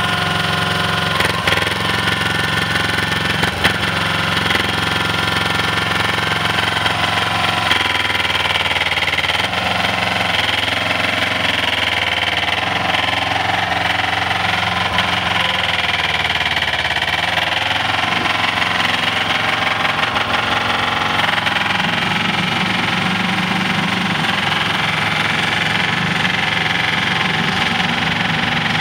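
Trench roller compactor's engine running steadily as the machine drives across gravel.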